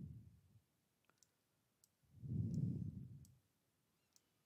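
A few faint computer mouse clicks. Louder low, muffled puffs of noise, each about a second long, fade out just after the start and come again about two seconds in.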